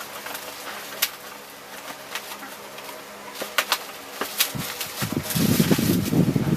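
Clear plastic wrapping crinkling with scattered sharp crackles as a long package is unwrapped by hand. About five seconds in, a louder low fluttering sound starts and continues.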